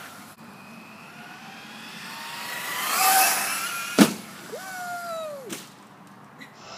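Traxxas Slash RC car's electric motor whining and rising in pitch as it speeds up and passes, loudest about three seconds in. A sharp bang comes about a second later, followed by a brief steady motor whine that drops away.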